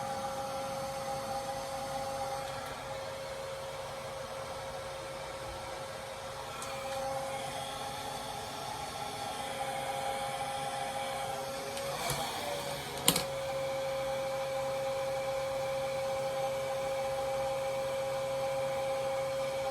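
Hand-held hair dryer running steadily, a constant hum with a whoosh of air, and a single sharp click about thirteen seconds in.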